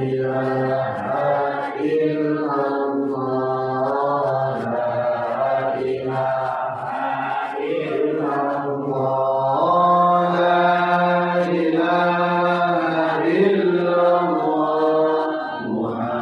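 Islamic dhikr chanted in long, drawn-out melodic phrases, a short phrase of praise to God repeated over and over, each phrase lasting about two seconds.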